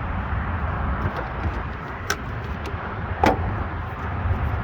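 Two sharp plastic clicks, a little over a second apart, from relays being handled in the under-hood fuse and relay box, over a steady low background rumble.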